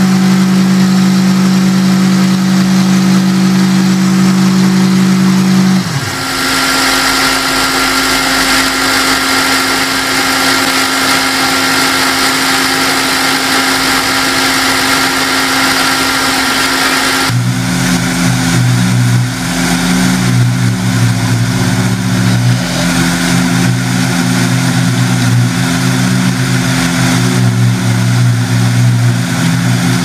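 Diesel engine of a tracked concrete-finishing machine running steadily, its note changing abruptly about six seconds in and again just past the middle.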